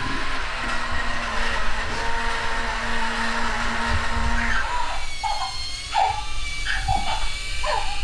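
Mattel's remote-control Child (Baby Yoda) animatronic toy running its drive motors in follow mode, a steady, noisy mechanical whir with a hum under it. From about five seconds in, short high baby-like coos come every half second or so over a quieter motor whine.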